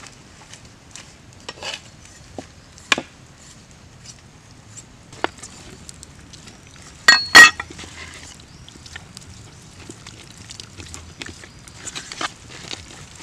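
Handling sounds as a raw pork leg is worked with a cleaver in a wooden bowl: scattered small knocks and taps, with two sharp clinks close together about seven seconds in, the loudest sounds.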